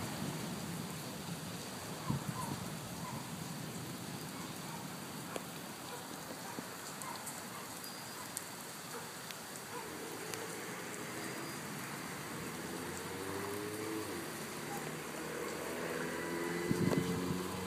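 Steady rain falling on a wet street and pavement, with scattered drop ticks. About halfway through, a motor vehicle's engine hum comes in, sliding in pitch and growing louder near the end as it approaches.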